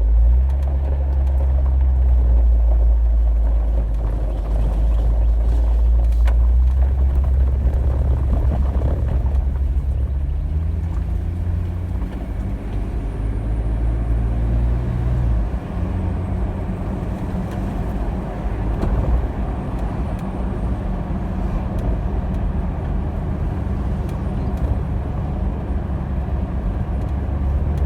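2018 Jeep Wrangler driving, heard from inside the cabin: a steady engine and road drone whose pitch rises about ten seconds in and drops back around fifteen seconds in. There is no popping or thumping from the front suspension over the bumps; the loose passenger front sway bar link has been tightened.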